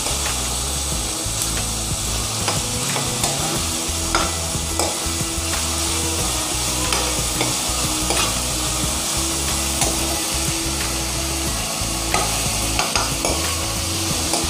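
Chopped onions and ginger-garlic paste sizzling as they sauté in hot oil in a kadhai, with a steady frying hiss. A steel spatula scrapes and taps against the pan at irregular moments as the onions are stirred.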